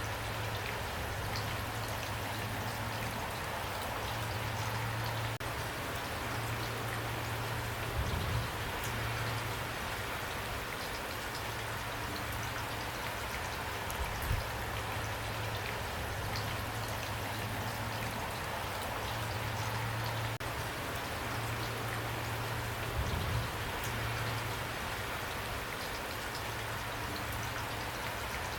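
Steady rainfall, raindrops pattering evenly on a surface. A low, steady rumble runs underneath, with a few brief low thumps.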